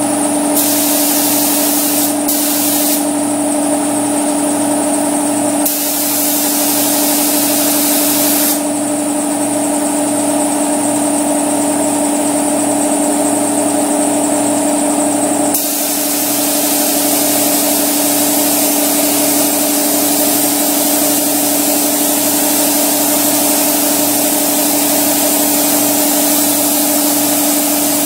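Paint spray gun hissing as it sprays 2K primer, in several on-off bursts and then continuously from about halfway, over a steady motor hum.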